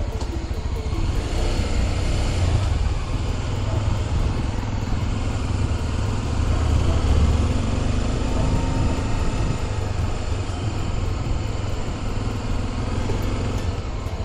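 Motorcycle running along the road while being ridden, a steady low rumble.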